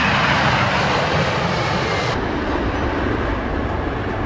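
Jet engines of a three-engined McDonnell Douglas MD-11 cargo jet at takeoff thrust: a loud, steady rush of jet noise as it lifts off and climbs. About two seconds in, the sound changes abruptly and its high hiss drops away, leaving a lower, steadier rumble.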